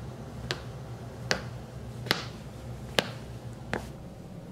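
Slow, evenly spaced footsteps, five sharp clicks about one every 0.8 seconds, over a low steady hum.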